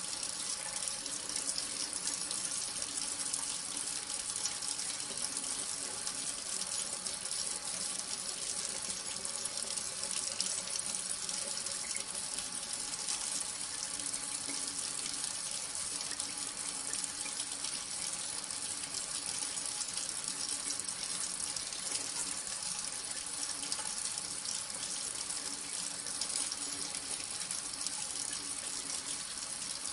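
Tap water running steadily from a bathroom faucet into a sink basin, a constant splashing hiss.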